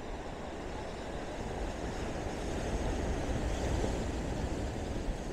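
Ocean surf washing against shoreline rocks, with wind on the microphone: a steady rush that swells a little about three to four seconds in.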